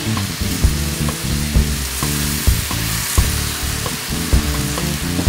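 Food sizzling hard over a wood fire: thin-sliced marinated beef on the grill grate and shrimp and vegetables in a cast iron wok. Background music with a regular beat plays under the sizzle.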